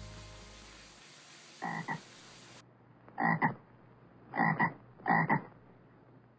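Frog croaking: a series of short croaks about a second apart, starting about one and a half seconds in. A fading musical note dies away during the first second.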